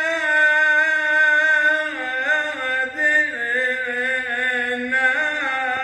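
A man's solo voice chanting a Syriac church hymn. He holds one long steady note, then about two seconds in drops lower into wavering, ornamented turns on a single vowel.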